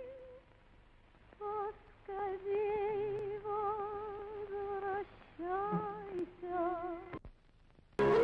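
A woman's voice humming a slow, wordless melody in short phrases, each held note wavering with vibrato. Louder music comes in right at the end.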